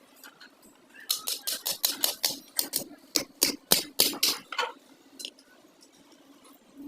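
A quick run of sharp taps or knocks, about five a second, lasting a few seconds and then stopping, with a few scattered ticks afterwards.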